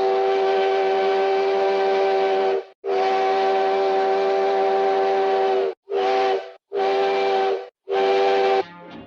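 A steam train's chime whistle sounding a chord of several notes over a hiss of steam. It gives five loud blasts: two long ones, then three short ones. Each blast sags slightly in pitch as it cuts off.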